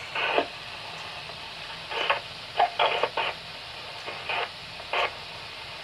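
NOAA Weather Radio receiver hissing with static, broken by about seven short, irregular bursts of narrow-band sound from its speaker.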